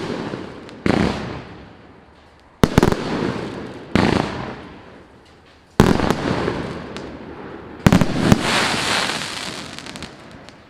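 FC115MK firework cake (multi-shot battery) firing: a sharp bang every one to two seconds, each trailing off in crackle and echo. The last bang comes near eight seconds in and is followed by a longer crackling spell.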